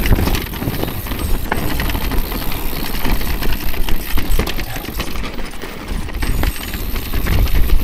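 Orbea Rise e-mountain bike rolling over a rocky, gravelly trail: tyres crunching on stone and the bike rattling with many small knocks over the bumps, over a low rumble of wind on the chest-mounted camera's microphone.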